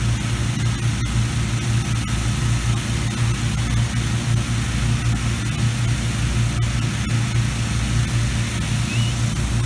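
Engine-driven inflator fan running steadily, a low hum under a constant rush of air, blowing cold air into a hot-air balloon envelope lying on its side: the cold-inflation stage before the burner is lit.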